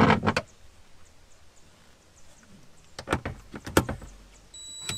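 A short clatter of tools and parts, then a few clicks and knocks about three seconds in. Near the end a DeWalt cordless impact driver spins up on an oil-tank mounting bolt with a high motor whine.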